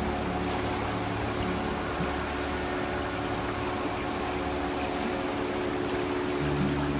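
Shallow rocky mountain river running over boulders, a steady rush of water. Low held tones sit underneath and change near the end.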